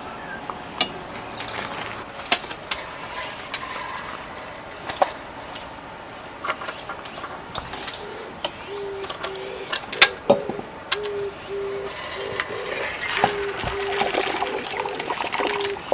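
Light clicks and knocks of small objects being handled, with a low tone in short repeated pulses starting about halfway through and a watery splashing hiss building near the end.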